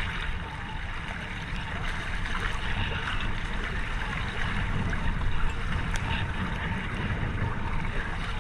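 Seawater sloshing and gurgling around a camera floating at the surface, a steady wash with a low rumble underneath.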